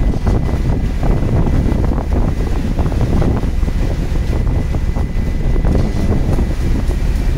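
Wind buffeting the microphone over the steady low rumble of a fishing boat under way. Frequent knocks and clatter come from crew handling fish on the deck, and a faint steady high whine runs underneath.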